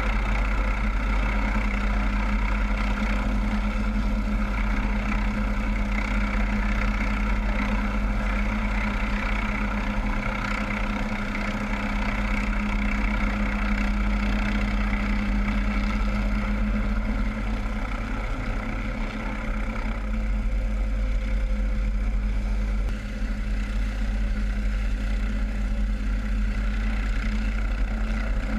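MQ-8B Fire Scout unmanned helicopter running steadily: its turboshaft engine and rotors make a loud, even drone with a strong steady hum and a deep rumble beneath it.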